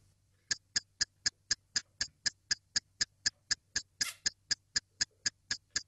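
Rapid, perfectly even clock-like ticking, about four ticks a second, with one short noise about four seconds in.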